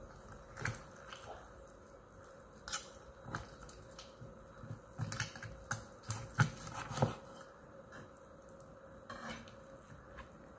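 Knife and fork carving a roast chicken on a wooden cutting board: irregular clicks, taps and low knocks of the blade and tines against the board and bones, with soft squishing of the meat. The taps come thickest a few seconds in, over a faint steady hum.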